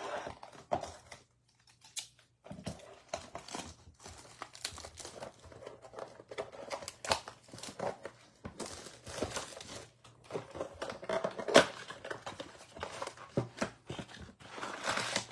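Cardboard blaster box of football trading cards being torn open along its perforated strip and pulled apart: irregular tearing, rustling and scraping of cardboard, with a sharp snap about eleven and a half seconds in.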